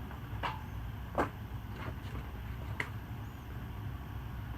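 36-inch ceiling fan coasting down after being switched off, its bearing freshly cleaned and oiled: a steady low rumble with a few sharp ticks.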